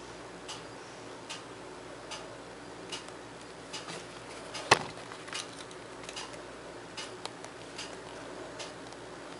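Regular ticking, about one tick every 0.8 seconds, over a low steady hum. A single much louder, sharp click comes a little before the middle, with a few extra irregular clicks after it.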